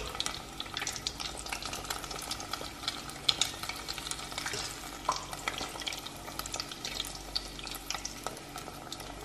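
Breaded chicken cordon bleu frying in a saucepan of hot oil: steady sizzling with many small crackling pops.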